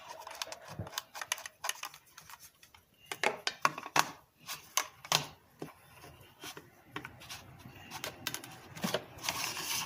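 Irregular clicks and rustling from hands handling a gaming mouse and its packaging, with a longer rustle near the end.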